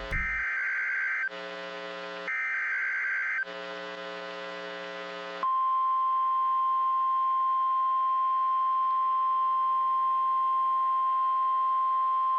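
NOAA Weather Radio emergency alert signals: two roughly one-second screeching bursts of SAME header data with a low buzz in the gaps, then, about five and a half seconds in, the steady 1050 Hz warning alarm tone starts and holds. This is the signal that announces a warning is about to be read.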